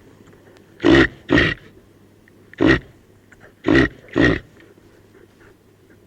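Female reindeer (Rangifer tarandus) grunting: five short grunts, a quick pair, a single one, then another quick pair.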